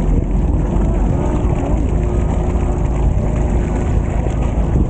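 Steady low rumble aboard a fishing boat: the boat's engine running, with wind and water noise on the microphone and a faint steady hum.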